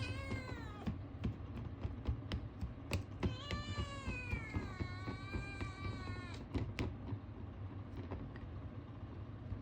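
Ragamuffin kitten meowing to ask for food. A falling call tails off in the first second, then one long, drawn-out meow of about three seconds begins about three seconds in, dipping in pitch in the middle. A few light clicks or taps fall in between.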